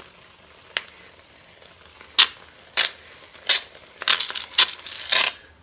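An aerosol can of shaving cream dispensing foam in about six short spurts, roughly twice a second, the last one longer.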